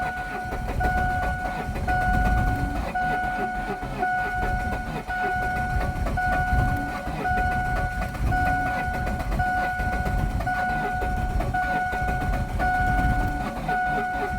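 An electronic warning tone sounding in pulses of about a second each, with short gaps, over an uneven low rumble.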